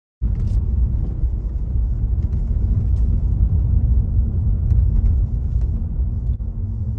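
Steady low rumble of a car being driven, engine and road noise heard from inside.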